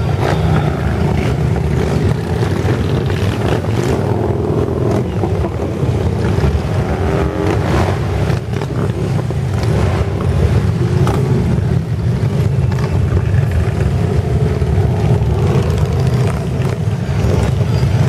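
A procession of large touring motorcycles riding slowly past one after another, their engines making a loud, steady low rumble.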